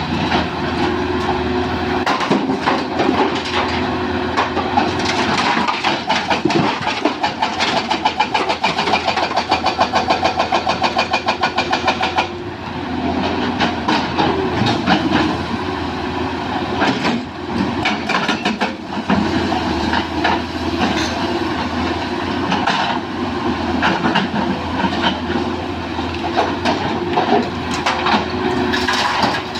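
Komatsu PC200 hydraulic excavator at work loading soil: its diesel engine runs steadily under load, with a rapid rhythmic clatter for several seconds in the first half and scattered knocks and clanks throughout.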